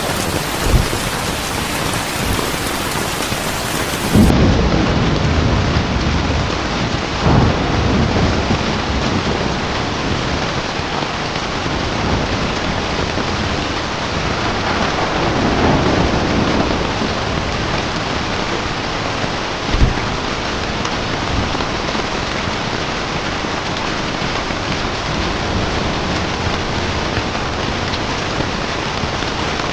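Steady heavy rain, with rolls of thunder swelling up about four seconds in, again a few seconds later and around the middle, and a few short sharp cracks.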